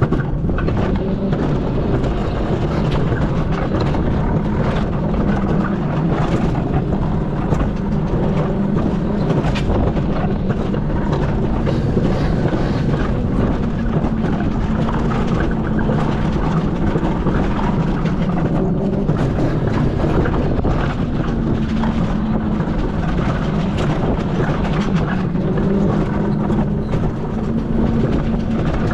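Alpine coaster cart running fast down its metal rails under gravity: a steady rumbling hum of the wheels on the track, with scattered clicks and rattles.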